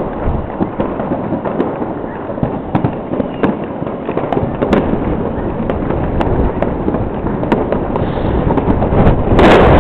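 Fireworks going off across a city, heard from afar as a continuous crackle of many pops and bangs. A louder burst comes near the end.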